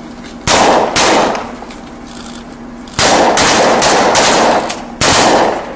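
Assault rifle fire: two shots about half a second apart, then a rapid string of about five shots over under two seconds, then one more shot near the end, each with a ringing echo off the surroundings.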